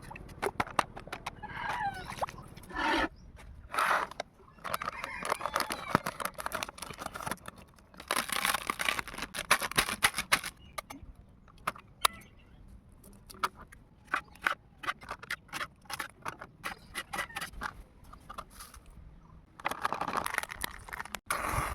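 Chickens clucking, among many scattered clicks and knocks, with two longer rushing noises about eight seconds in and near the end.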